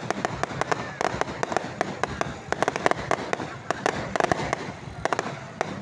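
Fireworks going off: a rapid, irregular string of sharp cracks and pops, thickest in clusters around the middle and towards the end.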